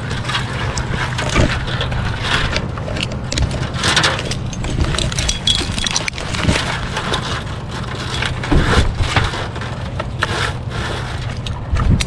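Irregular knocks, snaps and scraping of wood and branches during tree-climbing work, over a steady low hum.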